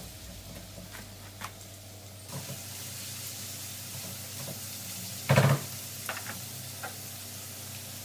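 Minced meat sizzling in a frying pan on a gas stove while it is broken up and stirred with a spatula, with a few small clicks of the spatula against the pan. A single loud knock sounds about five seconds in.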